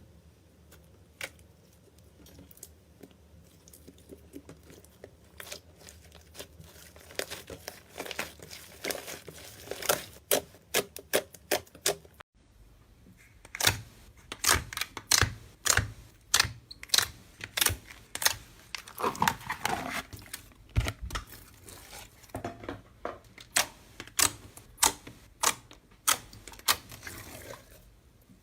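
Slime being squeezed and poked by hand, making a run of sharp wet clicks and pops as air pockets burst. The pops are sparse at first, then come louder and faster, about two a second, after a brief break about twelve seconds in.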